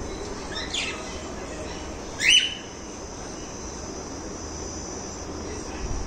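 Cockatiel giving two short calls: a faint one just under a second in and a louder, rising one about two seconds in.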